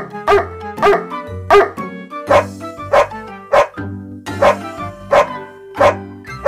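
Music with dog barks set in rhythm: short barks come about twice a second over a steady bass line.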